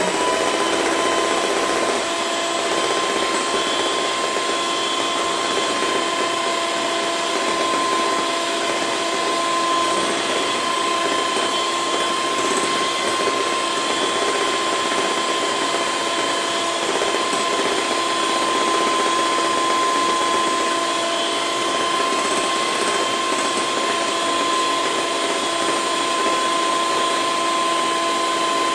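Handheld electric mixer with its beaters in a bowl of egg-and-sugar batter, running steadily at one speed with an even whine.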